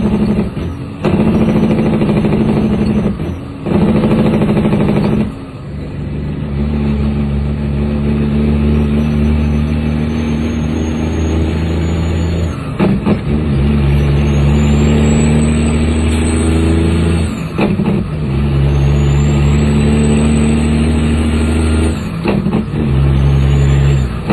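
Heavy truck's diesel engine pulling through the gears, heard from inside the cab. Its note drops off briefly at each of several upshifts of the manual transmission, then holds or climbs again. A thin, high turbo whistle rises as the engine pulls between shifts.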